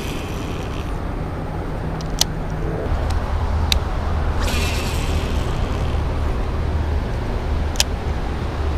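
Wind buffeting the microphone: a steady low rumble, with a few sharp clicks along the way.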